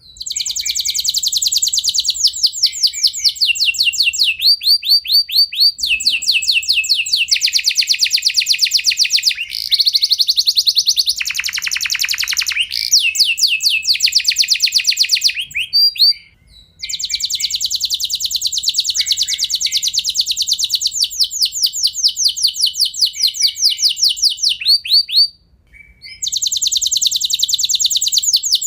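Domestic canary singing long rolling trills: strings of rapid repeated notes that change to a new tour every second or two, with a lower, deeper roll around the middle and two brief pauses in the second half.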